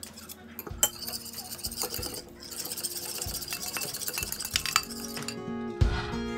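A utensil clinking and scraping against a bowl as butter is mixed for the bread's topping: scattered sharp clinks, with a stretch of scraping in the middle. Background music plays under it and grows louder near the end.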